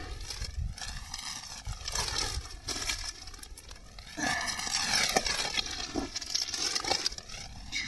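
Thin black plastic bag crinkling and rustling as it is pulled open and unwrapped by hand, with small cracks, louder from about four seconds in.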